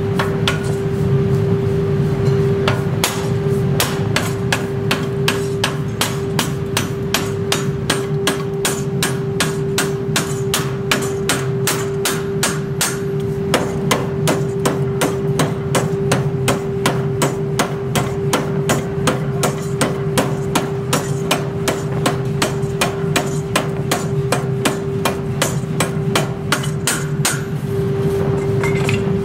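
Power hammer pounding red-hot steel in a ring die: a fast, regular run of heavy metal-on-metal blows, about three a second, starting in earnest about three seconds in and easing off near the end, over a steady machine hum.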